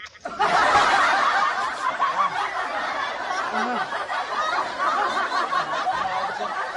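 Laughter from many voices, like an added laugh-track sound effect, starting abruptly about half a second in and running steadily.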